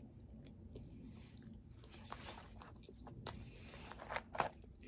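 A person chewing a mouthful of turkey burger with her mouth closed: faint wet mouth clicks, with a few sharper ones in the last second or so.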